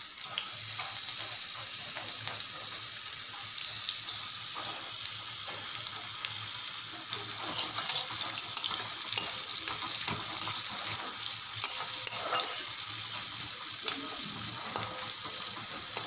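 Sliced onions frying in hot oil in a metal kadai: a steady high sizzle that swells just after the start as the onions go into the oil, with light scrapes of a metal spatula stirring them. The onions are being fried light brown for beresta.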